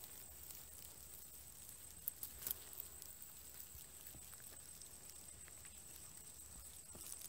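Quiet outdoor background with a steady high-pitched whine and a couple of soft clicks about two seconds in.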